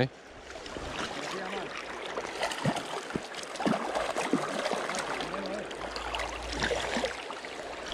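Shallow river water rushing and gurgling over stones close to the microphone, with splashing at the surface.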